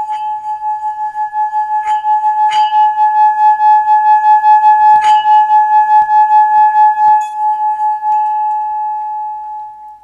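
A brass Chinese peace bell being rubbed around its rim with a wooden stick, singing-bowl style. It gives one steady ringing tone with a fast wobble, swelling louder towards the middle, with a couple of light clicks of the stick on the rim. The tone fades away once the rubbing stops about seven seconds in.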